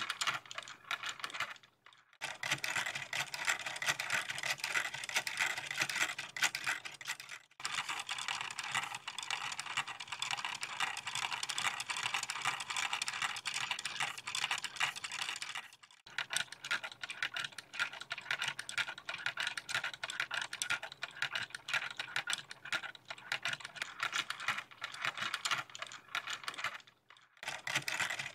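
Fast plastic clicking and clatter of a hand-cranked LEGO sewing machine model's Technic gears and linkages driving the needle up and down, broken by a few short pauses.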